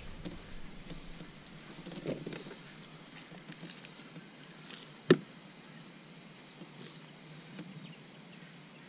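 Quiet handling sounds as a small bass is unhooked with pliers on a vinyl measuring mat: faint scratches and small clicks, with one sharp knock about five seconds in.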